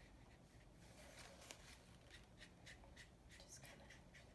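Faint scratchy swishes of a watercolour brush's bristles stroking over wet watercolour paper, about three short strokes a second, as the painted sky is blended out.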